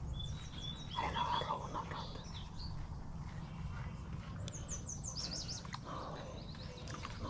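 Small birds chirping, with bursts of quick down-slurred notes near the start and again past the middle, over a steady low rumble.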